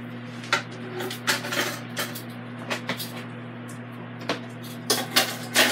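Metal tongs and a wire smoking rack clinking and knocking against the metal pot of an electric smoker. There are a few scattered knocks, then a quick run of clatters near the end, over a steady low hum.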